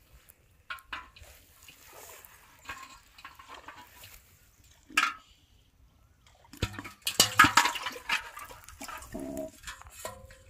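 Water splashing and dripping in an aluminium pot as a caught catfish is handled over it. A sharp knock comes about five seconds in, then a louder flurry of splashing.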